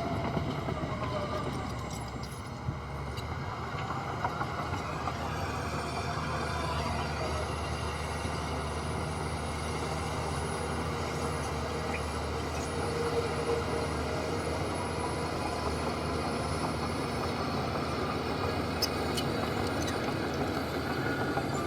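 Heavy diesel earthmoving machinery running steadily under load, a continuous low engine drone with some higher whining tones that drift slowly in pitch.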